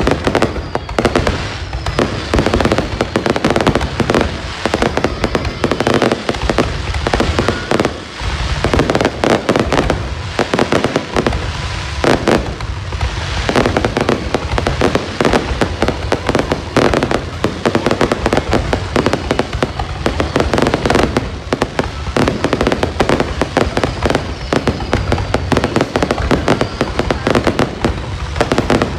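Aerial fireworks going off in a continuous barrage, many bangs and crackles overlapping with no break.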